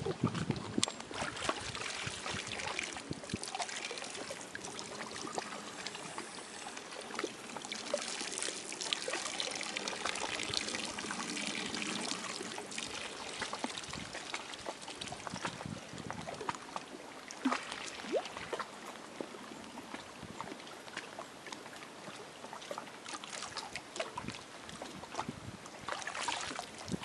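Water trickling and lapping, with many small splashy clicks.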